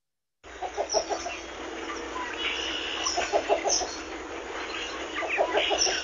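Least bittern calling: three bouts of a low, rapid coo-coo-coo, each of four or five notes, with fainter higher chirps behind.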